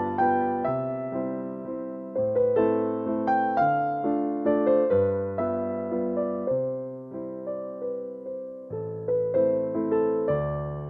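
Background music: a gentle piano or electric-piano melody, notes struck in an even rhythm over changing bass notes.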